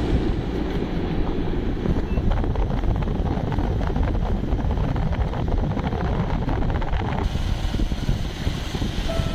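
Wind buffeting the microphone of a moving motorbike, a dense, uneven low rumble with the engine running underneath.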